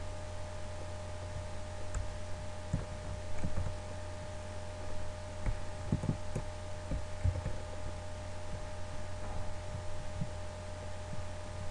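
Steady low electrical hum with a thin steady tone above it. Irregular soft low thumps are scattered through it, several close together around the middle.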